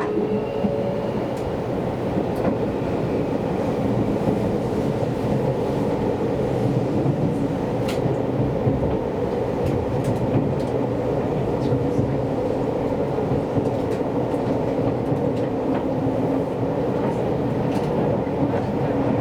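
Seibu Railway commuter train running through an underground subway tunnel, heard from inside the car: a steady rumble of wheels on rail with a low motor hum and a few sharp clicks.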